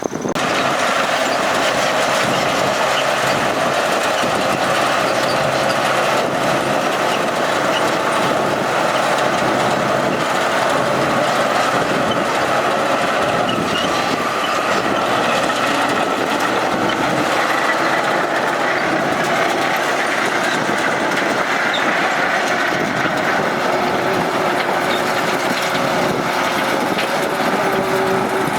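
Heavy diesel earthmoving machinery running steadily under load, a continuous loud mechanical din with no pauses.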